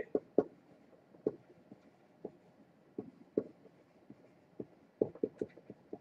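Faint, scattered taps and light scratches of a stylus writing by hand on a tablet, coming in small clusters, with the busiest run near the end.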